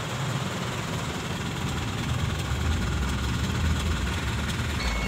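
Truck engine idling, heard from inside the cab, its low rumble growing stronger from about halfway through. A reversing alarm starts beeping right at the end as the truck is put into reverse.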